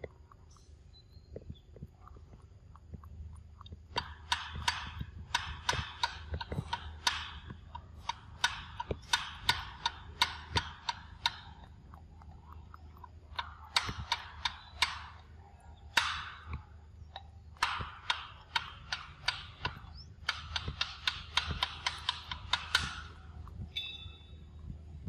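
Rapid, sharp clicking and smacking in irregular bouts of one to three seconds, several clicks a second: a macaque lip-smacking as it grooms another macaque's fur.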